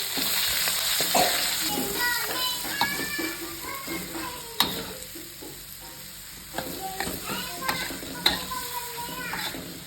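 Water spinach and mushrooms stir-frying in a hot pan: a steady sizzle of oil, loudest at first and then easing, with a spatula stirring and two sharp knocks against the pan, about halfway and again near the end.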